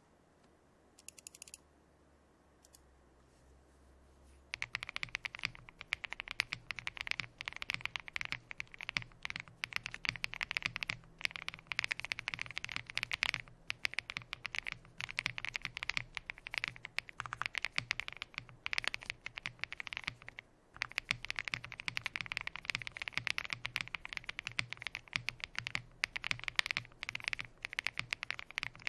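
Continuous fast typing on a Meletrix Zoom TKL gasket-mount mechanical keyboard with polycarbonate plate, CrInk Frankenswitches (NK Cream linear stems in Gateron Ink housings) and PBT keycaps. A few stray key clicks come first, then steady rapid keystrokes start about four seconds in, with one short pause about two-thirds of the way through.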